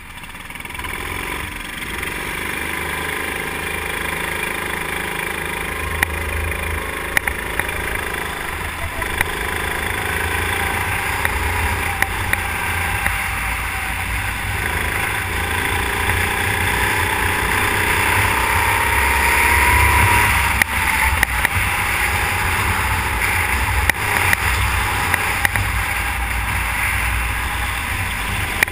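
Go-kart engine heard from an onboard camera, pulling away and then running at racing speed, its pitch rising and falling with the throttle through the corners. A heavy low rumble, likely wind on the microphone, runs underneath, with scattered sharp clicks.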